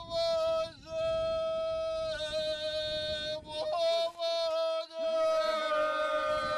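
Herzegovinian ganga: unaccompanied folk singing in which a lead voice holds a long high note over a lower voice held beneath it, breaking off briefly a few times. From about five seconds in, further voices join with downward-sliding pitches.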